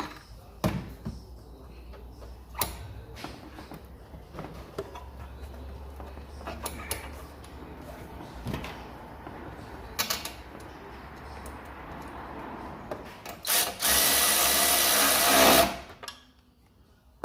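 Scattered clicks and knocks of metal tools and parts being handled. Near the end a power tool runs in one loud burst of about two seconds.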